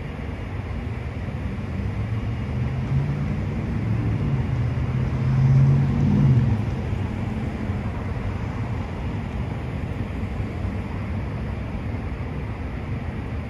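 Steady city traffic noise, with one motor vehicle passing: its low engine hum builds, is loudest about halfway through, then drops away.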